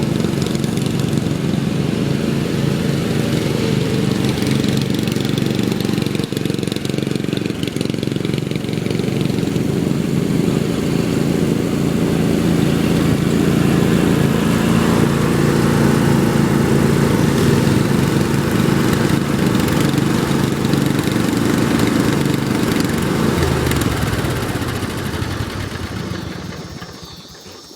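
Riding lawn mower engine running steadily, then dying away over the last few seconds.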